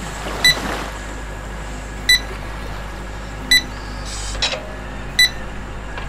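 Excavator warning beeper sounding single short, high beeps, one about every second and a half, over a low steady hum, as the Hitachi long-arm RC excavator swings its arm.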